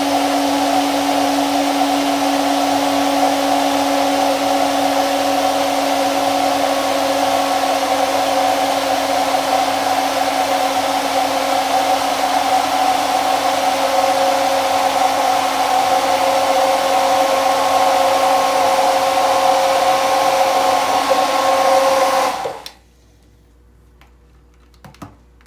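Hand-held stick blender running with a steady motor whine while emulsifying mayonnaise as oil is poured in, then switched off abruptly about 22 seconds in because the motor has got very hot. A few light knocks follow near the end.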